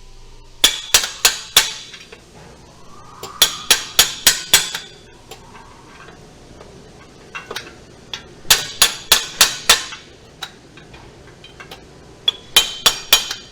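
Steel 3/8-inch socket extension rapped against the starter solenoid of a Genesis G70 3.3 turbo in four bursts of quick, ringing metal-on-metal taps. The tapping is meant to free a starter that only clicks and won't crank, to prove the starter is the fault.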